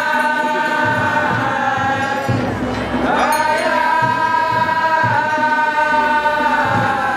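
Group devotional chanting with long held notes, over repeated drum beats.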